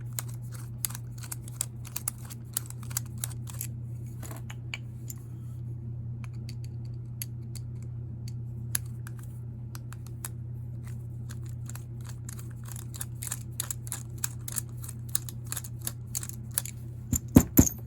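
Small metal tool clicking and scraping against carburetor parts in irregular ticks, over a steady low hum. A few louder clicks come near the end.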